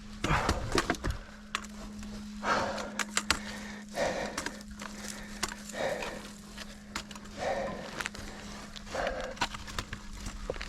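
Hiker scrambling through dense jungle undergrowth: footsteps and brushing vegetation come in soft rustling bursts about every one and a half to two seconds, with sharp snaps and clicks of twigs and stones between them.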